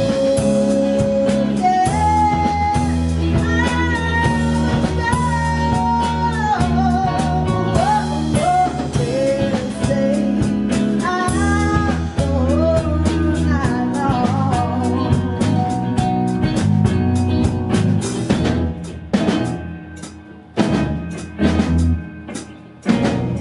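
Live band playing: a woman sings with vibrato over electric guitars, bass and a drum kit. About 18 seconds in, the band drops out, leaving separate loud drum hits.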